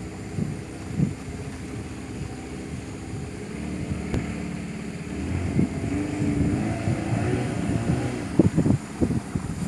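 Outboard motor of a wooden river longboat running steadily under way, with wind on the microphone. There is a sharp click about four seconds in and a few short thuds near the end.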